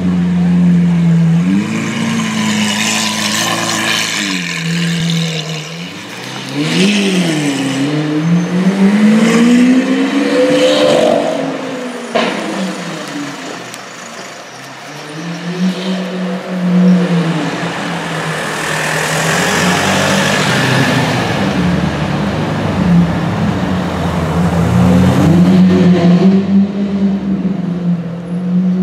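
Lamborghini Aventador's 6.5-litre V12 engine running loud at low revs, revved up and down several times around the middle with pitch rising and falling, then settling back to a steady running note.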